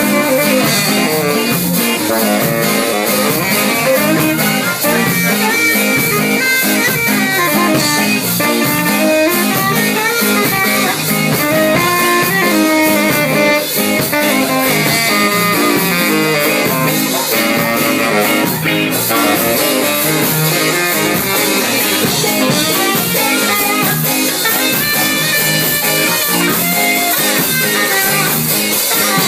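Live band playing a song, with guitar and drum kit, steady and loud throughout.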